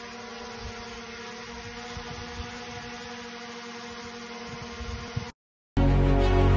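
DJI Mini 3 Pro drone's propellers whirring steadily as it hovers close by, with irregular low rumbles underneath. The whir cuts off about five seconds in, and background music begins a moment later.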